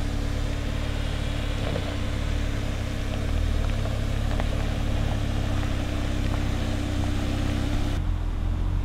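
Ford Bronco Sport crawling slowly over a rocky dirt trail: the engine runs low and steady, with small clicks of gravel and stones under the tyres.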